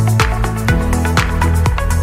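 Electronic dance music with a steady beat, about two beats a second, over a sustained bass line.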